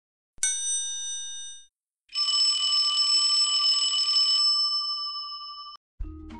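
A bright chime sounds once and fades over about a second. Then a bell rings continuously for about three and a half seconds and cuts off suddenly.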